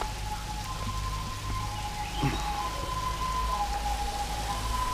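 A thin waterfall trickling and splashing over rock, heard as a steady hiss. Over it, a steady two-pitch tone alternates high and low about once a second. There is one short knock just over two seconds in.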